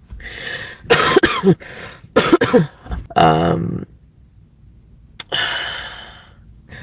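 A woman coughing in several rough bursts over the first four seconds. After a short pause comes a long, noisy breath that fades away.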